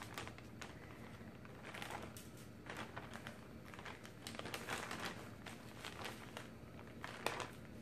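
Plastic zipper bag of crushed potato chips crinkling faintly as a hand works inside it, with soft rustles and a few light ticks as coated chicken pieces are handled and set on a metal sheet pan.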